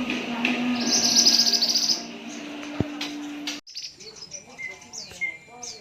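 Female pied bushchat singing: a fast high trill about a second in, then, after an abrupt cut, a series of short high chirps with falling notes and brief whistles. A steady low hum sits under the first half.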